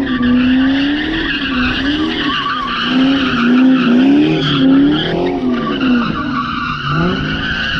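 Car tires squealing continuously in a burnout or doughnuts, over an engine revving up and down repeatedly.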